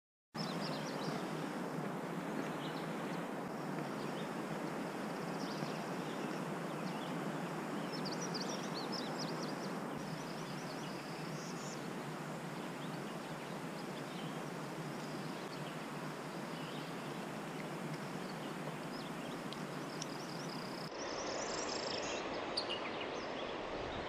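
Birds chirping now and then over a steady rushing background, with a short run of high chirps about eight to eleven seconds in and another near the end.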